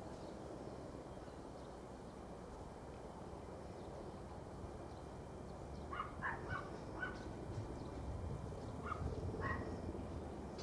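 Dog barking in the distance: a quick run of several barks about six seconds in, then two more about three seconds later.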